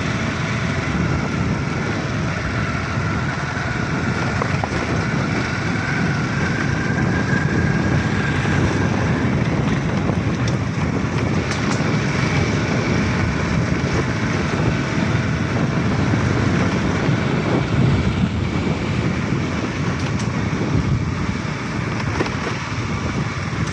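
Motorcycle engine running at a steady pace while riding, with a dense low rumble of wind and road noise over it.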